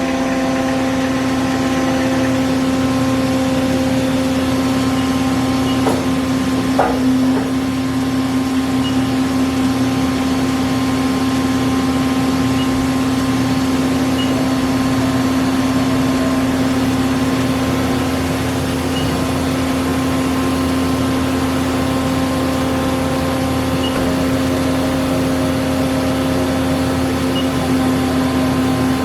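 Mori Seiki SL-75MC CNC lathe's live tooling spindle running at high speed, a steady machine hum with a strong low tone. A couple of brief clicks come about six to seven seconds in.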